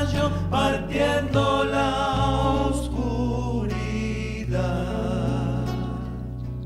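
Folk band playing a song: several voices singing together over acoustic guitars and bass, the voices moving about in the first few seconds and then settling into long held notes.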